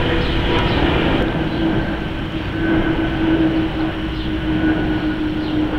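Twin-engine jet airliner flying overhead: steady engine noise with a held low hum and a fainter high whine.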